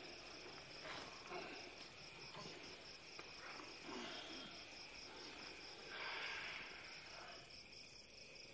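Faint crickets chirping in a steady, evenly pulsing rhythm, with a brief swell of noise about six seconds in.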